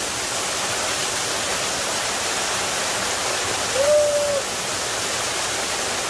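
Small waterfall pouring steadily onto rocks and onto a man standing beneath it, an even rushing of falling water. About four seconds in, a short held voice call rises over the rush.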